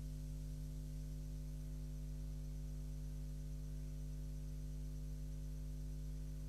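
Steady low electrical mains hum with a faint hiss, unchanging, with no other sound over it.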